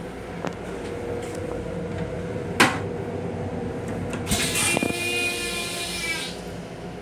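M7 railcar toilet flushing: a sharp click about two and a half seconds in, then a rushing whoosh with a faint whistle for about two seconds as the bowl is emptied.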